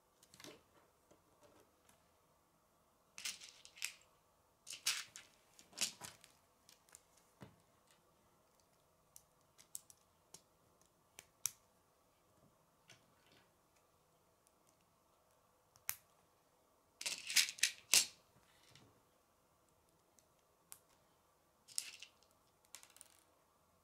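Plastic K'nex rods and connectors clicking and snapping together as they are handled and fitted by hand, in scattered clusters of sharp clicks with short rattles between.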